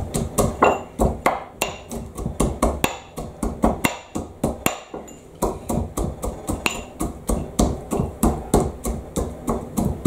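Pestle bashing whole nuts in a white ceramic mortar: quick, sharp knocks of the pestle cracking nuts against the bowl, about four a second, slowing briefly midway.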